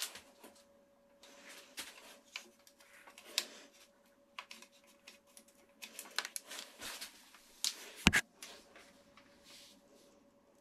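Hands working bicycle cables and housing: irregular rustling, scraping and small clicks, with one sharp knock about eight seconds in. A faint steady hum runs underneath.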